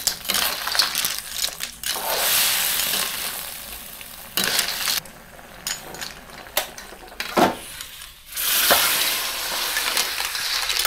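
Surf clams stir-frying in a pan: a sizzle with the shells clinking and scraping against the pan and spatula. The sizzle drops away for a few seconds in the middle, broken by sharp clinks, then comes back.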